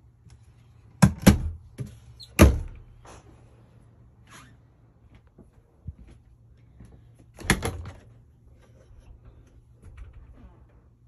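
Wooden cabinet doors in a travel trailer being shut: three sharp knocks between about one and two and a half seconds in, and another knock about three-quarters of the way through.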